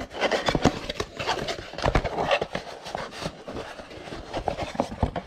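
Packaging rustling and crinkling with irregular clicks and knocks, as a compressor air filter from a startup kit is handled.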